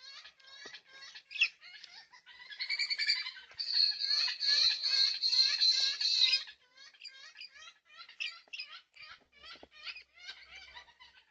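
Birds calling at a backyard feeder: a stream of quick, repeated chirps, broken from about two to six and a half seconds by a louder, drawn-out harsh squawking.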